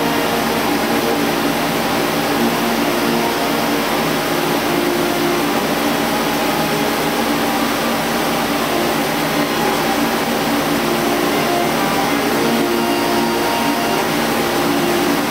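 CNC lathe turning a metal shaft with coolant spraying inside its enclosure, heard through the closed guard door: a steady hiss of the coolant with several held tones from the spindle and cut.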